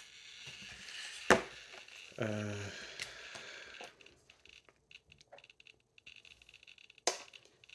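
Handling sounds: a sharp click about a second in and another near the end, with a brief hum of voice between them.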